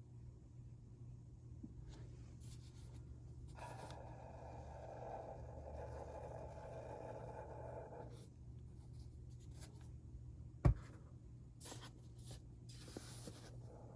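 Hands rubbing and mixing powdered cornstarch, making a soft scratchy rustling over a low steady hum, with one sharp knock about ten and a half seconds in.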